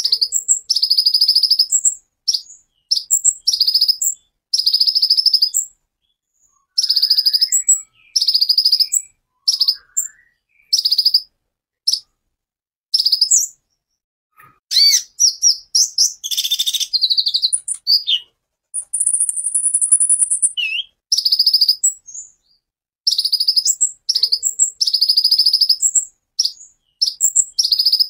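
Van Hasselt's sunbird (kolibri ninja) singing: rapid, high-pitched trilled bursts of half a second to a second each, repeated with short gaps. Midway comes a run of varied, quicker notes and a brief buzzy rattle.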